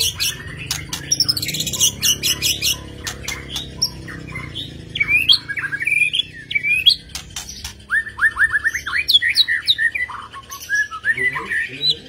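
White-rumped shama singing: a fast, varied song that opens with a burst of rapid clicking notes, then moves into clear sweeping whistles and a run of quick upslurred notes.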